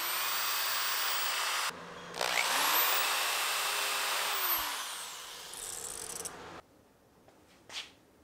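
Hand-held electric drill boring holes through an African mahogany door stile: it runs, stops briefly just under two seconds in, spins up again with a rising whine, and winds down with a falling pitch a little past halfway.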